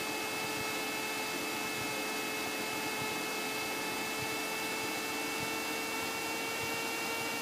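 Steady drone of the Cessna 172SP's four-cylinder Lycoming engine and propeller heard inside the cabin: a constant hum with a few steady tones over hiss, creeping very slightly up in pitch.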